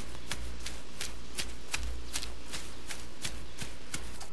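Quick, even footfalls of a woman running on grass with an above-knee prosthetic leg: short light taps about three to four a second over a low steady hum.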